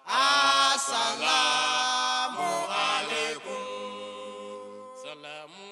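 Unaccompanied vocal chant in an Islamic devotional style: voices holding long, gently wavering notes, with no beat or instruments. It is loud for about the first three and a half seconds, then carries on more softly.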